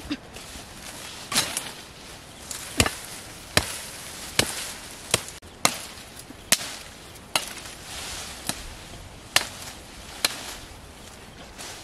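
A large knife chopping into a wooden tree branch: about ten sharp blows, roughly one a second and unevenly spaced.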